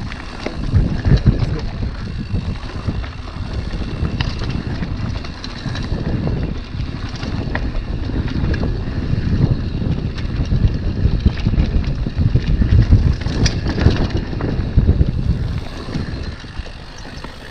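Mountain bike rolling fast downhill on a loose gravel and dirt trail: wind buffeting the microphone over the crunch of tyres on stones, with scattered sharp knocks as the bike hits rocks and bumps.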